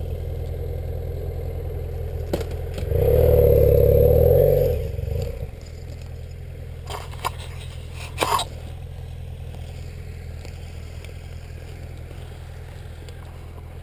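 Motorcycle engine idling steadily. A louder surge of engine sound lasts about two seconds, starting about three seconds in, and a few short knocks and scrapes follow.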